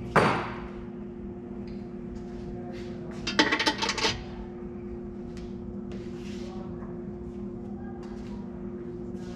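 Metal hardware and tools clinking and rattling: one sharp clink at the start and a quick cluster of rattling clinks about three and a half seconds in, with light ticks between, over a steady hum.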